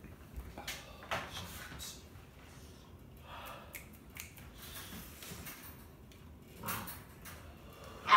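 Sniffing, heavy breathing and a nose blown into a tissue, heard as short hissing bursts with a loud burst at the very end. These are men reacting to the burn of a Carolina Reaper chip.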